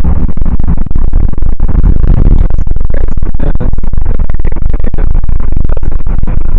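Loud, distorted rumble of a moving car's road and wind noise, overloading the microphone.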